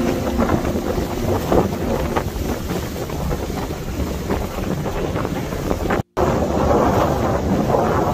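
Wind buffeting the microphone over the rush of water along a moving ferry's hull. The sound cuts out for an instant about six seconds in.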